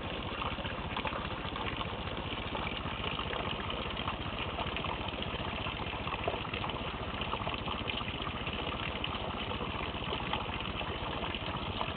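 Steady thunderstorm rain falling on the leaves of a flowering mock orange shrub, a dense even downpour.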